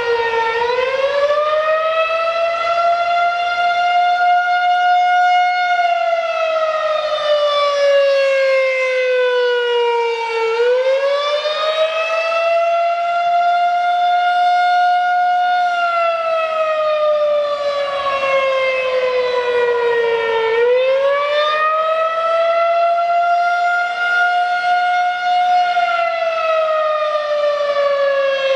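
Federal Signal 2001-SRNB electromechanical outdoor warning siren sounding during a test. Its wail climbs in pitch for about five seconds and then slides back down for about five, in three cycles of roughly ten seconds each.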